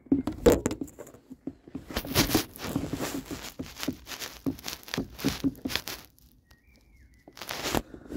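A man breathing hard and fast, out of breath, in rapid rough gasps. The breathing stops about six seconds in, and one more loud breath comes near the end.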